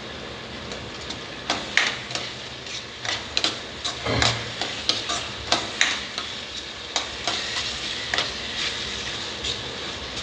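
A steel spatula scrapes and knocks against a dark kadhai as a thick masala gravy is stirred, in irregular strokes about every half second to a second, over a steady sizzle of the masala frying.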